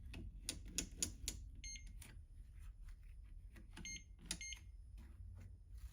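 Digital clamp meter beeping as its settings are changed: three short high beeps, one about two seconds in and two close together near four seconds, amid light clicks from handling the meter.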